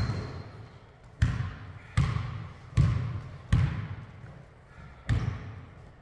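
A basketball bouncing on a hardwood gym floor about six times in a slow, uneven dribble, each bounce echoing in the hall.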